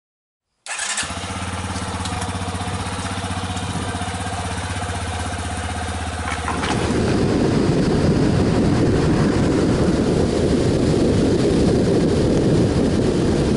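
Yamaha Serow 250's air-cooled single-cylinder four-stroke engine idling steadily. About six and a half seconds in this gives way to the louder sound of riding: wind rushing over the microphone on top of the engine.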